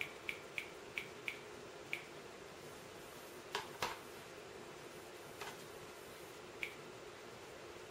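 Small plastic clicks from the mouse and keyboard navigating a web page: six quick light clicks in the first two seconds, a louder pair about halfway, then two single clicks later, over a faint steady hum.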